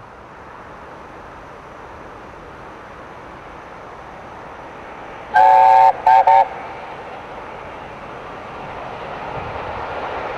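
Chime whistle of an LNER A4 Pacific steam locomotive, very loud: one blast of about half a second, then two short toots, about five seconds in. Under it runs the steady rumble of the approaching train, growing louder towards the end.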